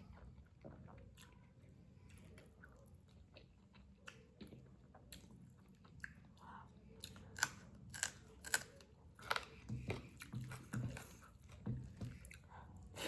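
Close-miked eating sounds: chewing and biting of spicy chicken with gravy rice, with wet mouth clicks and smacks that come thicker and louder in the second half.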